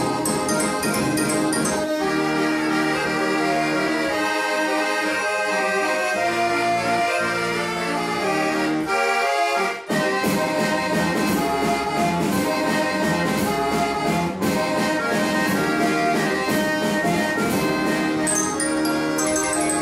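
Accordion playing a tune in held chords, with a brief break in the sound about halfway through.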